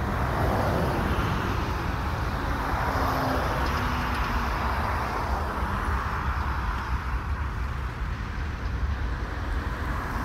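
Road traffic: a flatbed work truck and cars driving past, a steady traffic noise that swells over the first few seconds and eases after about six, over a constant low rumble.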